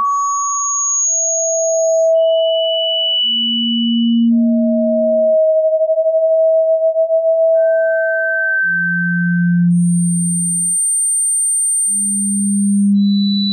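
Pure sine tones for tinnitus sound therapy: single steady pitches, each held a second or two and swelling in and out, a low hum alternating with higher tones that jump between middle, high and very high, thin pitches. About halfway through, two tones of nearly the same pitch sound together and beat in a fast wavering.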